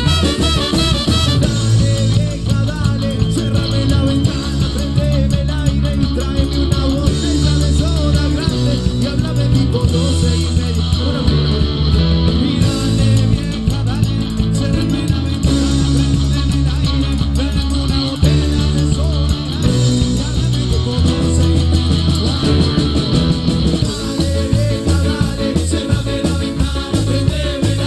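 Live cuarteto band playing: electric guitars, trumpets and saxophone, keyboard and drums over a strong, pulsing bass, with a singer's voice at times.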